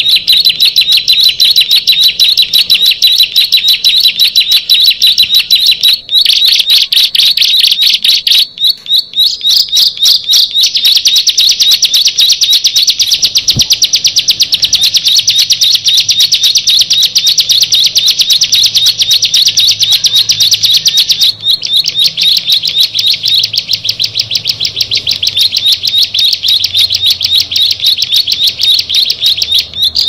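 Ciblek (prinia) singing a long, fast, high-pitched trill of rapidly repeated notes, broken by brief pauses a few times.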